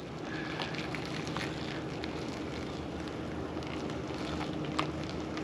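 A truck running at low speed as it backs a boat trailer down a ramp: a steady low noise with a faint hum, scattered light crackles, and wind on the microphone.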